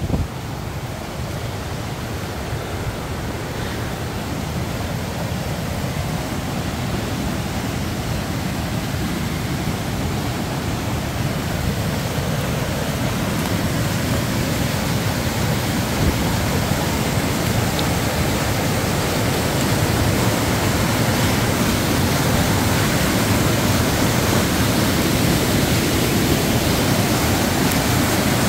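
Steady rushing of running water, slowly growing louder.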